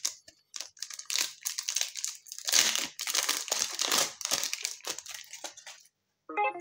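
Foil trading-card pack torn open by hand, its wrapper crinkling and crackling in a dense run of rustles.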